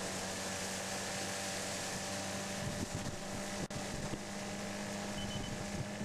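A motorboat's engine running steadily at speed, with a constant low hum under heavy wind and water rush on the microphone. The sound cuts out for an instant about halfway through.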